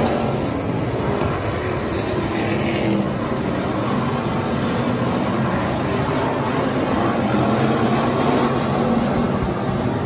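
Factory stock race car engines running hard at race speed: a loud, steady engine drone that does not let up.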